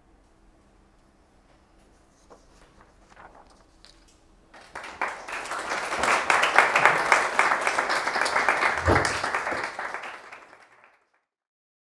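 Audience applauding: a few scattered claps, then full applause from about four seconds in, dying away near the end.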